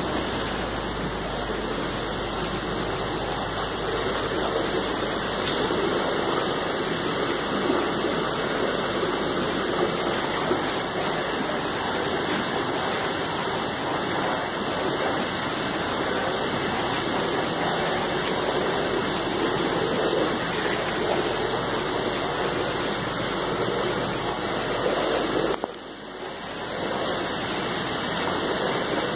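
Steady rush of running water, as from water flowing or splashing into hatchery tanks, briefly dropping away about 26 seconds in before resuming.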